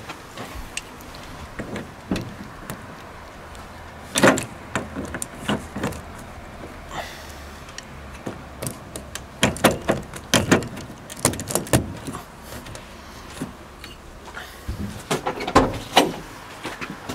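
Sharp clacks and knocks of windscreen wiper arms being lifted and set back against the glass and spindles by hand, coming in several clusters, while the return position of the newly fitted arms is checked.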